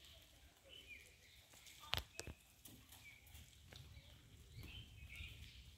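Near silence: faint outdoor ambience with a few faint short high chirps and a single sharp click about two seconds in.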